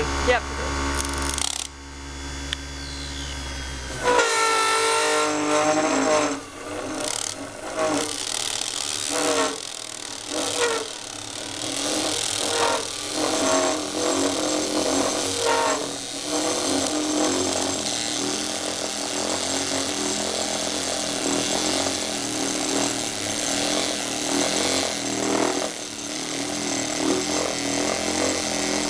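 Small benchtop lathe cutting a metal bar, the tool peeling off chips with a continuous scraping hiss over the running spindle, with voices in the background. A low hum cuts out abruptly about four seconds in.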